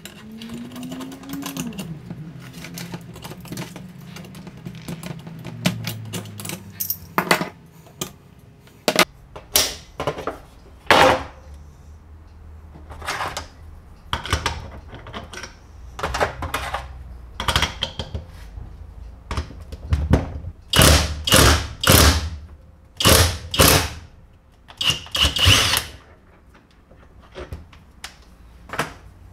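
Workshop hand-tool work on the moped's parts: an irregular run of sharp knocks and clicks mixed with short scraping strokes, coming faster and louder in a run of strokes late on.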